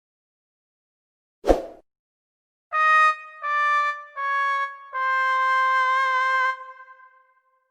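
A short click, then a brass "sad trombone" phrase: four notes stepping down by about a semitone each, the last held long with a wobble. It is the classic wah-wah-wah-waaah effect that signals failure.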